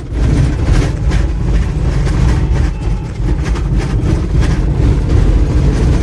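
A vehicle driving over a rough, unpaved desert track: a loud, steady low rumble with constant jolts and rattles.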